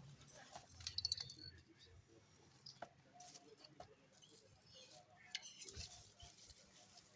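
Faint clicks and light rattling from small objects being handled, with a short cluster of sharper clicks about a second in.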